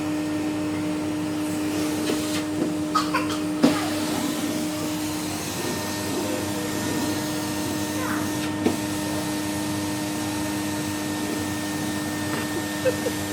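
Henry hoover running steadily, its motor giving a constant hum, with a few light knocks about three to four seconds in and again near the middle.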